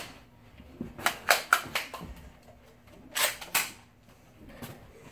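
Nerf dart blasters being primed and fired: a handful of sharp clacks and pops about a second in, then two more a couple of seconds later.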